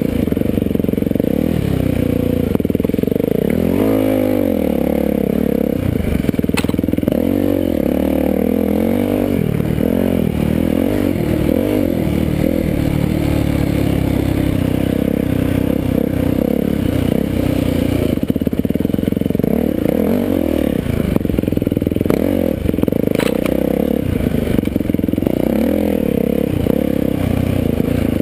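Dirt bike engine running hard, close to the microphone, its pitch rising and falling over and over as the throttle is worked through ruts. Two sharp clicks, about six seconds in and again near twenty-three seconds.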